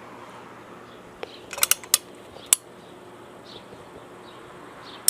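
A few sharp mechanical clicks, four in quick succession about a second and a half in, typical of a caulking gun's trigger and plunger rod as Dicor lap sealant is pumped out of the tube.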